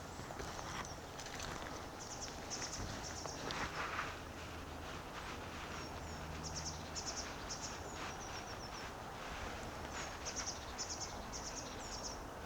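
Tits singing: several phrases of short, rapidly repeated high-pitched notes, over a faint steady low rumble of distant traffic, with a brief rustle about four seconds in.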